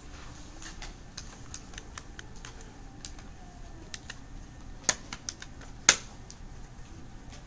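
Scattered light clicking of small buttons and keys being pressed, irregular and overlapping, with two sharper, louder clicks about a second apart midway through.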